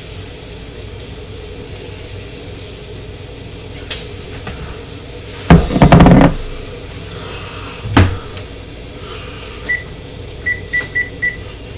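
Kitchen clatter over a steady sizzle from a venison steak in a hot pan. A burst of loud knocks and bangs comes about halfway in and a single knock a couple of seconds later, then a few short electronic beeps near the end.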